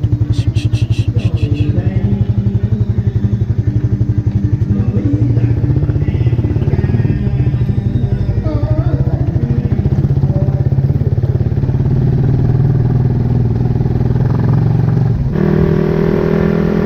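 Suzuki Raider Fi 150's single-cylinder engine through an aftermarket black Indo exhaust can, running with a steady, crisp pulse as the bike rides off at low speed. The note steps up near the end as the bike picks up speed.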